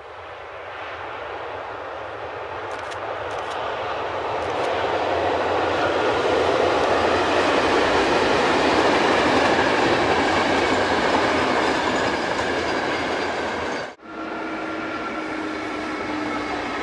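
An electric-hauled passenger train runs across a concrete viaduct. Its rolling rumble and wheel noise build to a peak about halfway through and then ease off. About 14 s in the sound cuts abruptly to another approaching train, a steady rumble with a faint whine.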